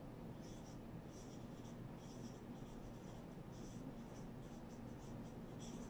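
Felt-tip marker writing on a whiteboard: faint, short, high-pitched squeaky strokes, one after another, as a word is written out.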